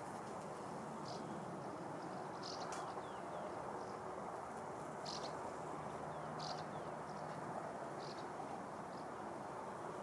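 Short, high bird chirps every second or two over a steady background noise. A bumblebee's low buzz hums for about two seconds in the middle.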